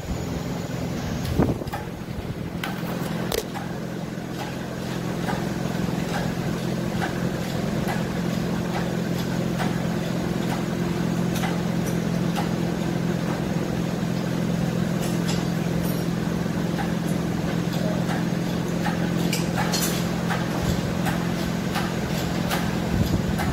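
A steady low mechanical hum with scattered clicks and knocks.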